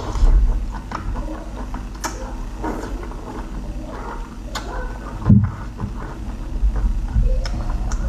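Close-miked eating sounds: wet chewing and sucking on cooked octopus tentacles, with many small irregular clicks and one low thump about five seconds in.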